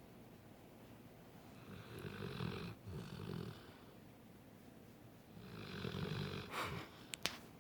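Snoring: two long, rasping snores about three and a half seconds apart. Two sharp clicks come just after the second one, near the end.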